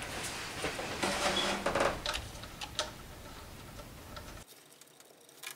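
Light ticking and clicking of a hand tool and metal parts as a bolt is threaded into a new idler pulley on the engine's belt bracket. It drops away to near silence about four and a half seconds in.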